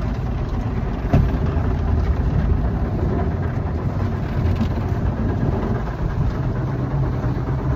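Automatic car wash working over the car, heard from inside the cabin: a steady low rumble and rush of its cloth brushes and water, with one sharp knock about a second in.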